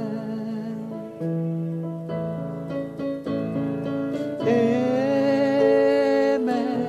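Slow worship song: a man singing over sustained keyboard chords, rising into a long, wavering held note in the second half.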